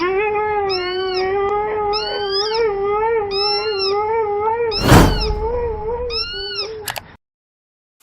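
A pet animal's long, wavering howl held for about five seconds, over short rising-and-falling calls repeated about once a second. A loud burst of noise comes about five seconds in, and everything cuts off abruptly shortly before the end.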